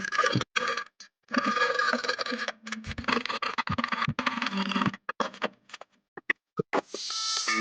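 Hand tool working wood, probably a hand saw or plane: long scraping strokes of about one to two seconds each, with brief pauses between them.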